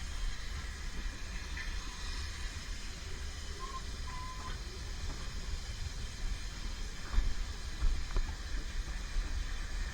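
Narrow-gauge steam train running: a steady low rumble with a hiss over it and a few sharp knocks from the wheels in the second half, plus a brief faint squeal near the middle.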